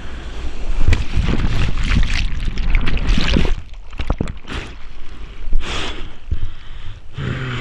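Seawater rushing and splashing close to the microphone in the surf, loudest and most continuous for the first few seconds, then breaking into choppier splashes and gusts.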